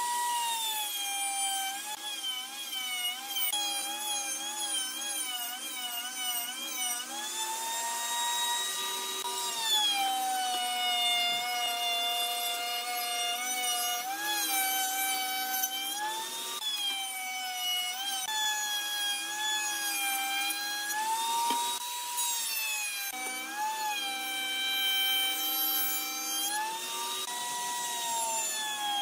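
Electric power tool working wood, its motor running continuously. The pitch sags and recovers every few seconds as the tool is pressed into the workpiece and eased off.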